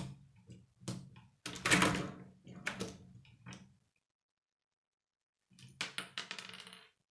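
K'nex plastic rods and connectors clicking and rattling as they are snapped onto a toy motorbike model, in two bouts of handling with a silent gap of about a second and a half between them.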